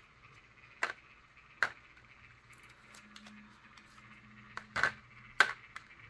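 A few sharp clicks and taps of small plastic alcohol ink bottles being handled and set down on a paper plate: two in the first couple of seconds, then three close together near the end, the last the loudest.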